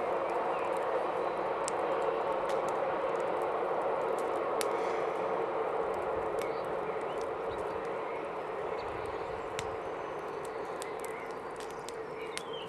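Wood fire crackling in an open fire pit, with irregular sharp pops, over a steady rushing noise that eases off slightly near the end.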